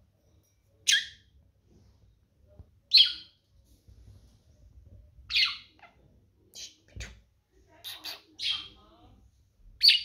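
Budgerigar giving short, sharp chirps, roughly one every two seconds and coming closer together near the end, with a soft thump about seven seconds in.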